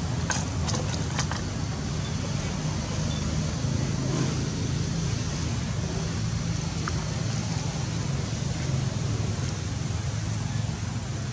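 Steady low rumble under an even hiss of outdoor background noise, with a few faint clicks about a second in.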